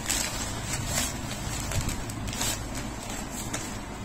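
Rustling of a dark nylon carry bag being handled, in several short bursts, over a steady low background rumble.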